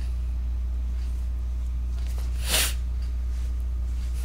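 Steady low hum of the recording, with one short breath noise, about half a second long, a little past halfway.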